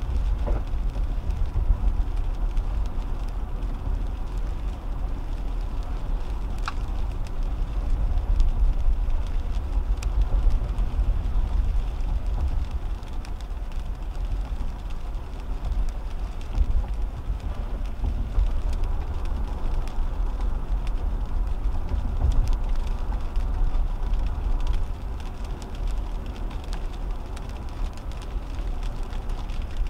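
Road noise inside a 2010 Toyota Camry driving on wet pavement in the rain: a steady low rumble of tyres and engine, with a couple of faint clicks.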